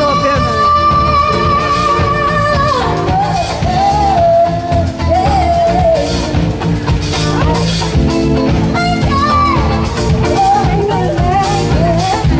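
A song with a singing voice over drums, bass and guitar. The voice holds one long high note for the first three seconds or so, then moves through a winding melody.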